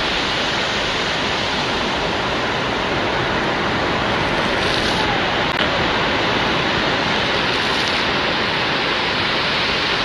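Ocean surf breaking and washing up a sandy beach: a steady rushing of waves.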